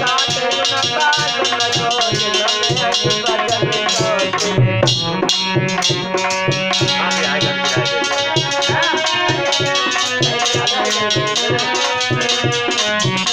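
Devotional bhajan music, instrumental here: a hand drum and rattling percussion keep a fast, even beat under sustained held chords and a wavering melody line.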